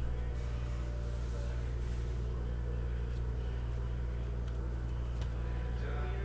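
A steady low hum, with a few faint light clicks.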